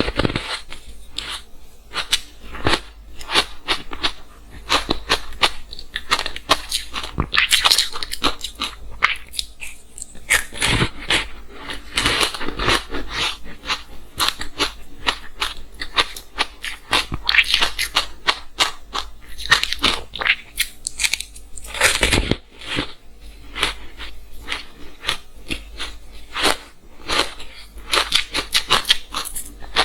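Close-miked crunching of matcha green tea ice being bitten and chewed: dense, irregular crackling crunches, some louder clusters of bites.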